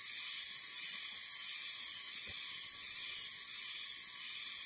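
Steady high-pitched hiss of outdoor ambience, with one faint low knock about two seconds in.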